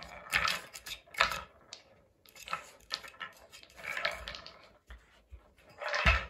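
Wooden balls clattering and rolling in the tracks of a wooden tiered cat ball-track toy as a dog paws at it, in irregular bursts. A heavier thump comes near the end as the dog bumps into the camera.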